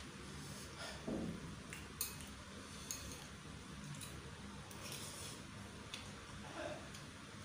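Eating sounds: a spoon and fork clicking lightly against a bowl a few times, with soft chewing and slurping of chicken noodles.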